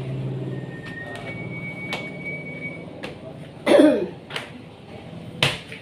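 Footsteps on wooden stairs: a few separate knocks about a second apart, with a short vocal sound a little past the middle that is the loudest thing heard.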